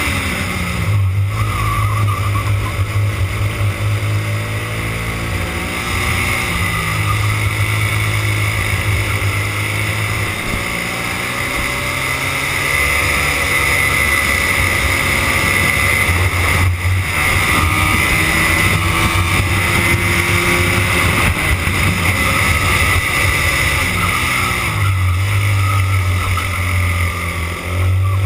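Racing go-kart engine at race pace, heard on board: the engine note drops several times as the kart slows for corners and climbs again as it accelerates out.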